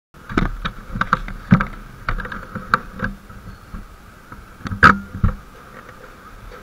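Irregular knocks and clicks of handling noise on a handheld action camera's built-in microphone, clustered in the first three seconds and again around five seconds in, over a steady faint hiss.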